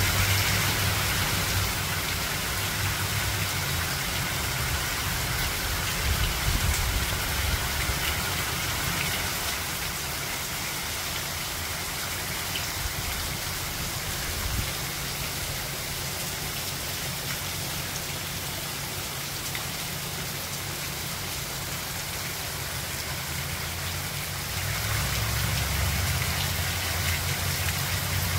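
Heavy rain falling steadily on a lawn, driveway and paving, an even hiss of drops. Under it runs a low rumble that eases midway and grows louder again near the end.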